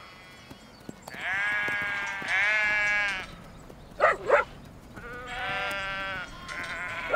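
Sheep bleating: several long, wavering bleats, two of them back to back about a second in and more near the end. About four seconds in come two short, louder calls.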